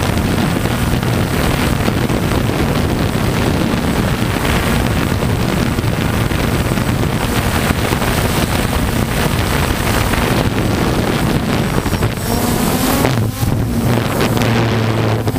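Quadcopter's motors and propellers heard from its own onboard camera: a steady whirring hum with heavy wind buffeting on the microphone. Near the end the hum grows more distinct and the wind noise briefly drops out a couple of times.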